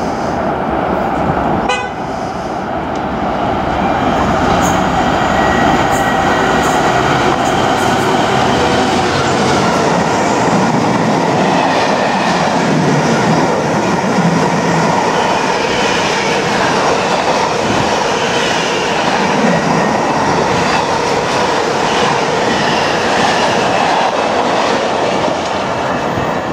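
Container freight train hauled by a diesel locomotive passing through a station at speed without stopping: a loud, steady rumble of the engine and the long run of wagon wheels clattering over the rail joints.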